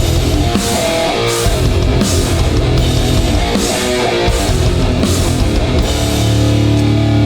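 Live hardcore punk band playing an instrumental passage: heavily distorted guitars and bass over drums with crashing cymbals. About six seconds in, the drums stop and a single chord is left ringing.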